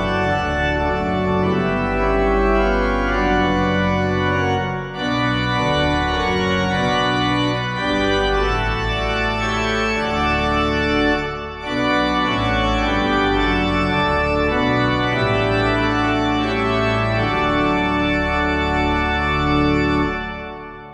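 Organ music playing slow, sustained chords, with two brief breaks between phrases; it cuts off suddenly at the end.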